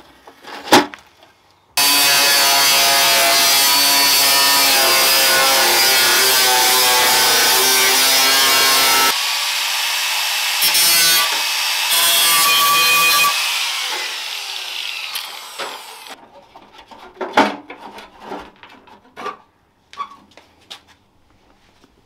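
Angle grinder starting up about two seconds in and cutting into the Land Rover Discovery 2's front guard panel to trim it for tyre clearance, a steady loud whine with grinding, its note and level changing partway as the cut goes on. It then winds down with a falling whine, followed by a few light knocks near the end.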